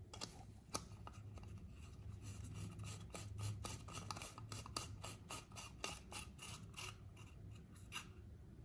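Metal screw base of an LED bulb being twisted by hand into a lamp socket: a run of small scraping, rubbing clicks, thickest in the middle.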